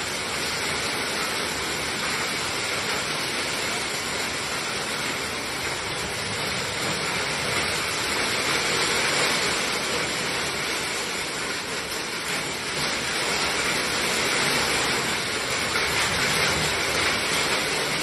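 Heavy rain mixed with hail pouring down, a steady dense hiss of falling water and ice, slightly louder in the second half.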